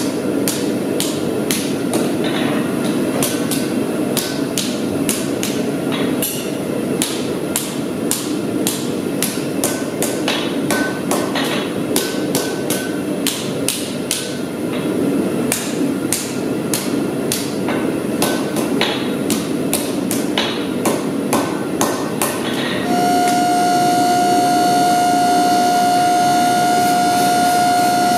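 Hand hammer striking red-hot steel on an anvil: a rapid, uneven run of sharp ringing metal blows over a steady low rushing noise. About 23 seconds in the blows stop and a steady pitched tone takes over.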